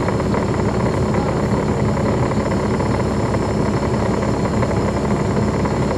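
Caterpillar C13 ACERT diesel engine of a 2009 NABI 40-SFW transit bus running steadily, heard from inside the bus.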